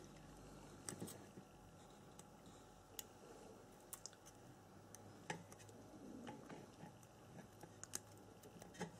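Faint, scattered small clicks and taps of hand tools working a diode's wire lead on a circuit board during soldering, over near-silent room tone.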